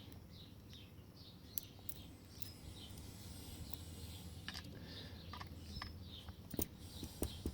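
Faint bird chirps throughout, with a few sharp clicks of small metal padlock parts being handled during disassembly, the loudest near the end.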